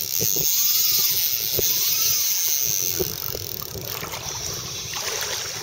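Fly reel's drag buzzing as a hooked bonefish runs line off the spool into the backing, a high whirring that eases off three to four seconds in.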